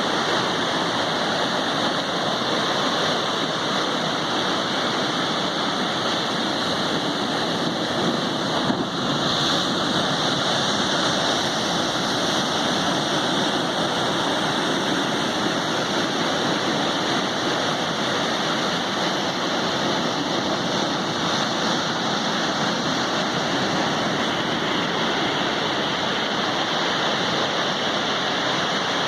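Sea waves breaking in a steady, even rush, with rain falling.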